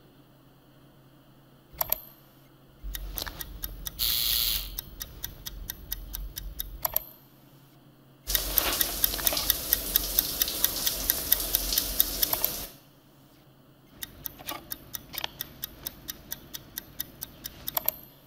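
Soundtrack of a video ad played over a hall's sound system: a clock ticking about four times a second, with brief swishes about two seconds in, about seven seconds in and near the end. From about eight to thirteen seconds in, a loud rushing noise runs under the ticking.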